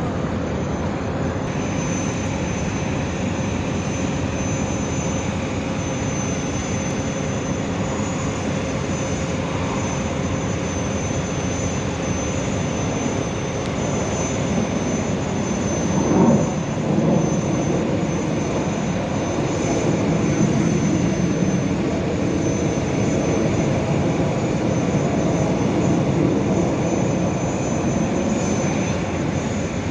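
Jet engines of an aerobatic formation, the Surya Kiran team's BAE Hawk jet trainers, flying the display overhead: a steady jet rumble that swells about halfway through and stays louder in the second half.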